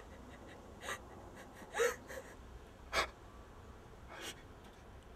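A person gasping: four short, sharp breaths about a second apart, the second with a brief catch of voice.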